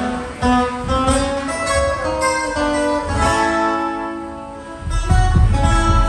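Acoustic guitar picking a run of notes and strums while the band plays along during a sound check. Deep low notes swell up about five seconds in.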